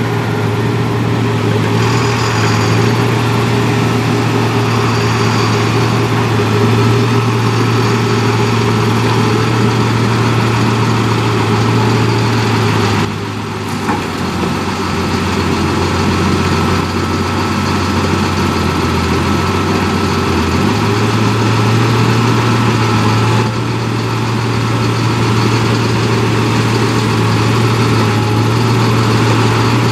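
Large machine engine running steadily with a deep, even hum, dipping briefly about 13 seconds in and shifting pitch slightly a few times.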